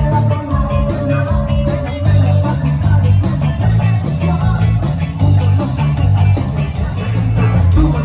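Rock band playing: a bass line and a steady drum beat with electric guitar over them.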